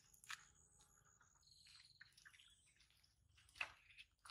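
Near silence: quiet outdoor air with a few faint, short high chirps and ticks.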